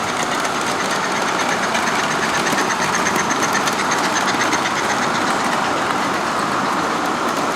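Model train running on a show layout, its wheels giving a rapid, even clicking over the track, over a steady background din.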